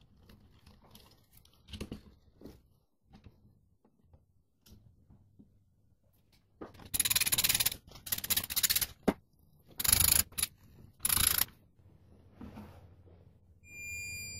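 Stator fixing screws being driven into a Honda C90 engine's crankcase: four bursts of rapid ratchet-like clicking over several seconds, with light handling clatter before them. Near the end a steady high electronic beep sounds.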